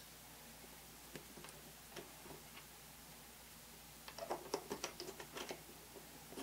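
Faint clicks and light taps of small hobby tools handling a scale-model part, a few scattered ticks and then a quick flurry of clicks about four seconds in.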